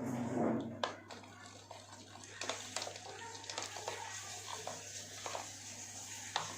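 Kitchen handling sounds during food preparation: a louder knock and rustle at the start, then scattered light clicks and taps.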